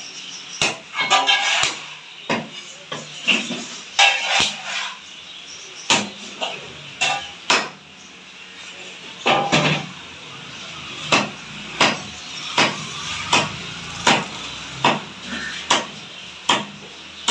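Heavy curved cleaver-knife chopping through a large fish, down into a wooden log chopping block: a long series of sharp knocks, irregularly spaced, roughly one every half second to a second.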